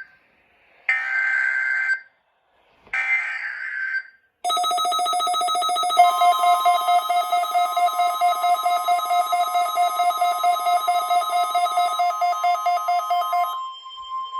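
NOAA Weather Radio SAME header: a burst of digital data tones ends, then the burst repeats twice more, each about a second long with a second of silence between. About four and a half seconds in, a rapidly pulsing alarm tone starts. About six seconds in, a steady single-pitch warning alarm tone joins it. The pulsing stops near the end while the steady tone carries on.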